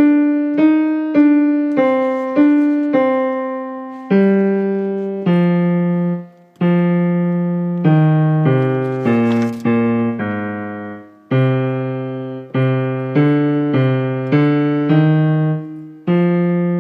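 Piano playing the tenor and bass lines of a choral part: two voices at once in a string of struck, decaying notes, with two short breaks between phrases.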